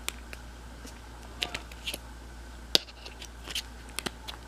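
Light plastic clicks and taps of hands fitting a battery into a smartphone and handling its plastic back cover, with one sharper click a little past halfway.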